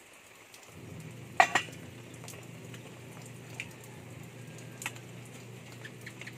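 Stainless steel ladle clinking against a metal cooking pot while stirring boiling pork broth, with one loud clang about a second and a half in, a second clang near five seconds and a few lighter clinks, over a steady low hum.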